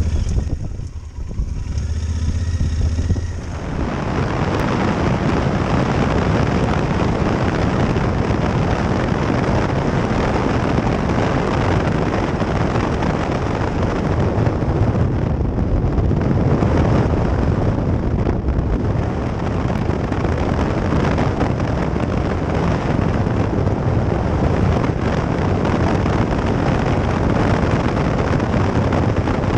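Adventure motorcycle riding along, its engine running low and steady for the first few seconds at slow speed, then at road speed a dense rush of wind over the microphone that covers most of the engine.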